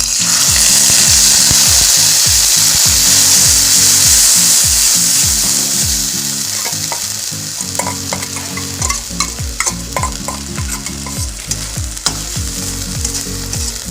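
Ground ginger paste hitting hot ghee in a kadhai: a loud sizzle that starts at once and eases after about six seconds, with light knocks and scrapes of stirring in the second half.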